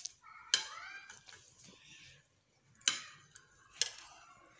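Metal spoon clinking against a ceramic plate while scooping food: three sharp clinks, about half a second in, about three seconds in and just before four seconds.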